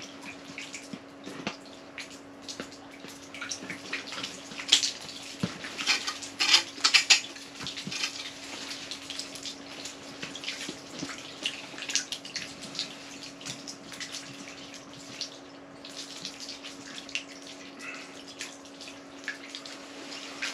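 Irregular small wet splashes and crackles, densest and loudest about five to seven seconds in, over a steady low hum.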